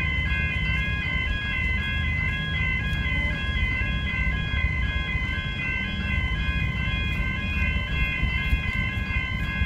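Railway level crossing warning bells ringing steadily in an evenly repeating pattern of several ringing tones, the signal that the crossing is closed for an approaching train. A low rumble runs underneath.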